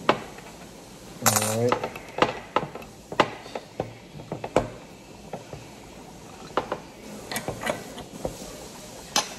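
Irregular sharp metallic clicks and clinks, about ten, as a sight-pusher tool is handled and adjusted to push a pistol's rear sight across its dovetail.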